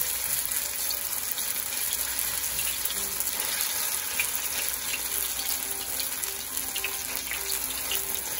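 Grated potato batter sizzling steadily in hot olive oil in a frying pan, with light scrapes of a spoon pressing and spreading the batter.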